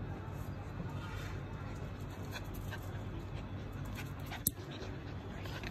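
Husky puppies play-fighting, with faint dog breathing and vocal sounds and a few sharp clicks, the loudest about four and a half seconds in.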